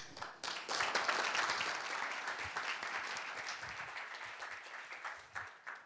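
Audience applauding. It starts about half a second in and dies away over some five seconds.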